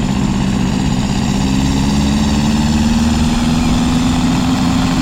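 An engine running steadily, its low hum rising slightly in pitch. It cuts in and out abruptly.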